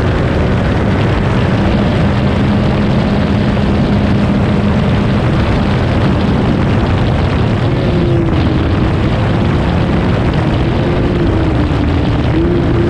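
Rally side-by-side's engine running hard at speed, heard from inside the open cab over steady gravel and wind noise. Its pitch dips and climbs again a few times as the driver lifts off and gets back on the throttle.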